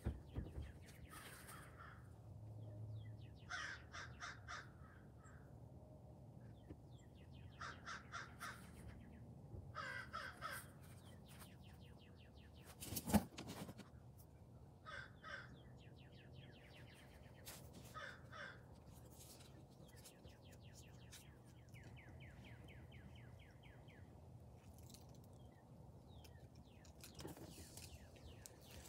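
Crows cawing in repeated bursts of harsh calls, with one sharp pop about halfway through.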